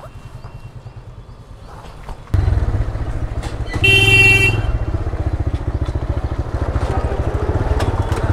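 Motorcycle engine idling, then pulling away more loudly about two seconds in and running on as the bike rides off. A short horn toot, the loudest sound, comes about four seconds in.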